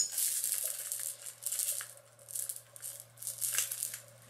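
Small plastic beads rattling inside a toy gumball-machine keychain as it is shaken in a run of short bursts, after a sharp click at the start.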